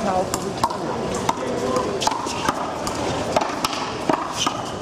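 A small rubber handball being slapped by bare hands and smacking off a concrete wall and court floor during a one-wall handball rally: a string of sharp, irregular whacks, several each second.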